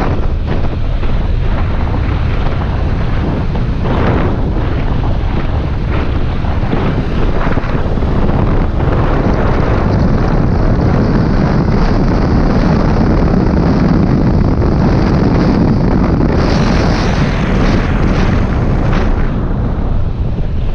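Loud, steady wind buffeting on the camera microphone of a Yamaha R15 M motorcycle riding at road speed, with a brighter hiss for a few seconds near the end.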